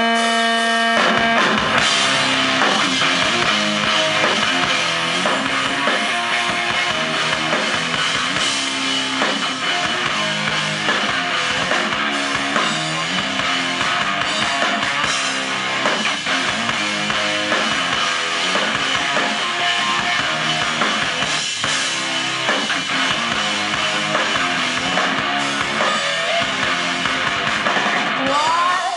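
A live rock band playing an instrumental passage on electric guitar, bass guitar and drum kit, heard loud through the stage PA. It opens on a held chord for about a second before the drums come in.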